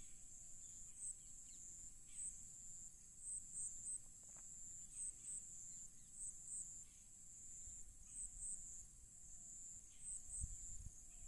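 Faint crickets chirring, a steady high trill with short louder chirps now and then, and a soft low bump about ten seconds in.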